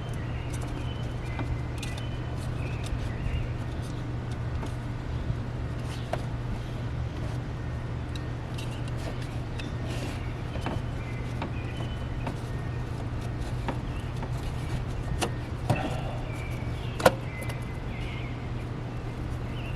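A steady low hum with a few light clicks and knocks of car intake parts being handled and fitted; the sharpest click comes about seventeen seconds in.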